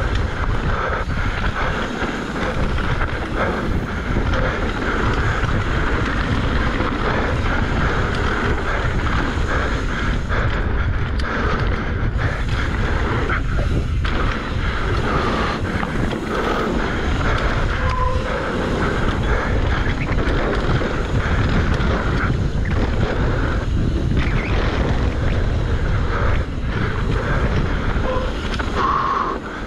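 Wind rushing over the microphone and the rumble of a mountain bike's tyres rolling fast down a dirt trail, with frequent knocks and rattles from the bike over bumps.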